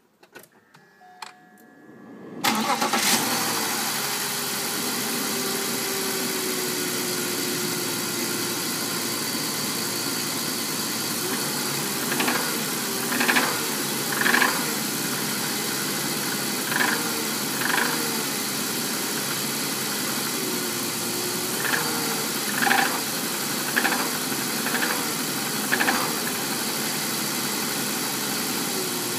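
2001 BMW 530i's M54 3.0-litre inline-six started from cold: a few faint clicks, then the starter cranks about two and a half seconds in and the engine catches into a steady idle. From about twelve seconds in, around nine short, loud bursts of noise come and go over the idle for roughly fifteen seconds. This is the intermittent cold-start noise that disappears once the engine is warm, its cause not known to the owner.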